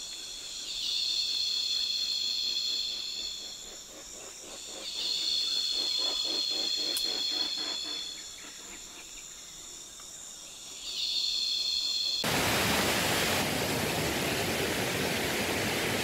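Congo Basin rainforest insect chorus: a steady high buzzing that swells louder in waves lasting a few seconds. After about twelve seconds it cuts suddenly to the even rush of a flowing river.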